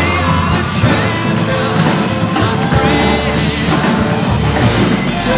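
Rock music with a drum kit playing.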